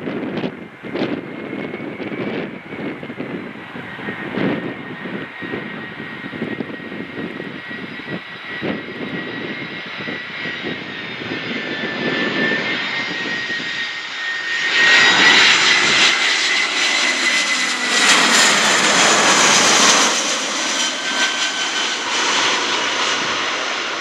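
Jet airliner passing with a steady high engine whine and a roar that swells to its loudest about 15 to 20 seconds in, then eases. Gusts of wind buffet the microphone in the first half.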